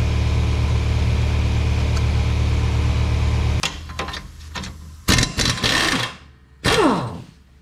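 Pneumatic impact wrench hammering steadily on the lower ball joint nut for about three and a half seconds, then a couple of short bursts of the air tool, the last one winding down in pitch near the end.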